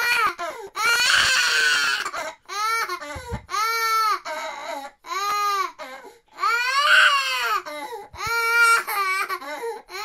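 Recorded sound effect of an 18-month-old boy crying, played back from a computer: a string of wailing cries, each arching up and down in pitch, with short breaks between. It is the alert that plays when the USB drive has been removed.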